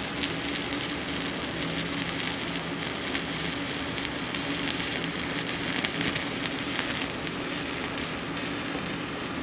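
Stick welding arc of a 7018 electrode run downhill (vertical-down) on eighth-inch-thick steel tubing: a steady crackle and sizzle.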